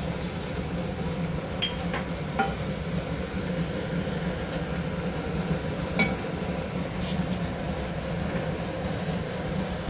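Chopped garlic and green chili sizzling steadily in a little hot oil in a pan, with a few sharp clicks of a spoon against the pan as it is stirred.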